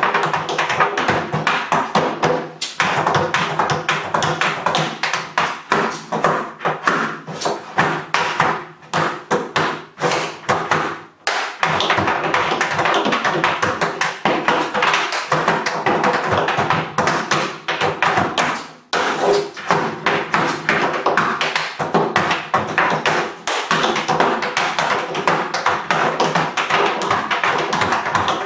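Tap dancing: metal-plated tap shoes striking a wooden tap board in fast, dense rhythms, with brief breaks about 3, 11 and 19 seconds in.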